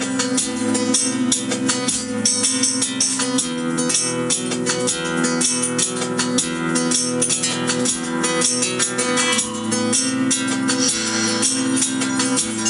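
Recorded acoustic guitar music, plucked and strummed in a steady rhythm, played back from a video on a phone.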